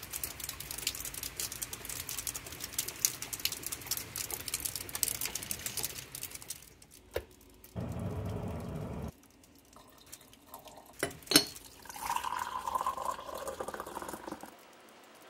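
Steady rain falling on a lawn and shrubs, a dense patter of drops, for the first six and a half seconds. Then an electric kettle heating water, a rushing sound of about a second that cuts off abruptly. After it come a few sharp clicks, the loudest about eleven seconds in, and a rushing sound of about two seconds near the end.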